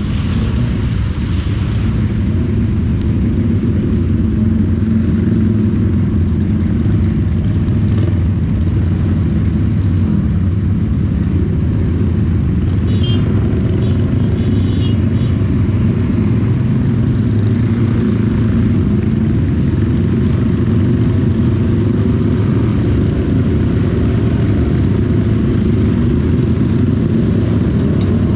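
CB 250 motorcycle engine running steadily while riding, under an even hiss of rain and road spray.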